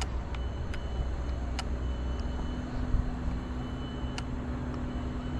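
Low steady outdoor rumble with a faint steady hum joining about a second and a half in, and a few light clicks.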